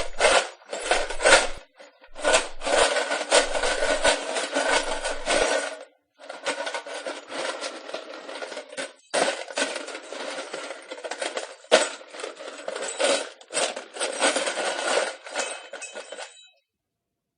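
Pieces of wood being handled: a continuous clatter of wooden knocks, scrapes and rubbing. There is a brief pause about six seconds in, and the sound stops shortly before the end.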